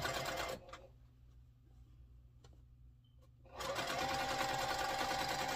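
Electric sewing machine stitching a seam through fabric. It stops about half a second in, leaving only a faint motor hum and a few small clicks, then starts again a little after three and a half seconds, with its whine rising as it comes up to speed, and runs steadily.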